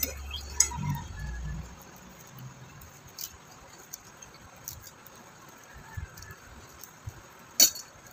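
A few scattered light clicks and clinks of a fork against a plate while eating noodles, the loudest one near the end.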